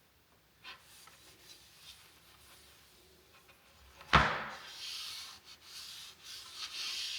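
A sharp wooden knock about four seconds in, then a cloth rubbing and buffing a wax-and-oil board butter into the wooden pizza peel, a steady scrubbing hiss. Before the knock there are only a few faint light taps.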